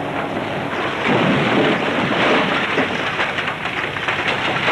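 A steady rushing, rattling noise of gravel and stone being tipped out in bulk, swelling about a second in.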